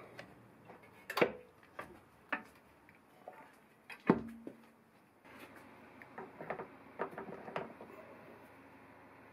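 Metal clunks and clicks from hand-changing the belt and back-gear setup of a Myford Super 7 lathe to lower its spindle speed, with the loudest clunk about four seconds in ringing briefly. Near the end come a run of lighter metal clicks as a quick-change tool holder is fitted to the toolpost.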